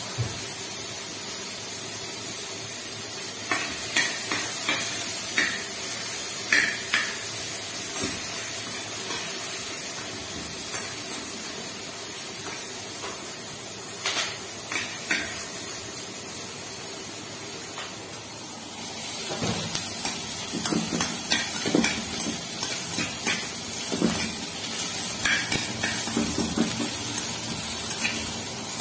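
Oil sizzling steadily in a frying pan, with a few sharp clinks of a metal spoon on the pan. About two-thirds through the sizzle grows louder, and the spoon scrapes and knocks repeatedly as sliced onions are stirred in the hot oil.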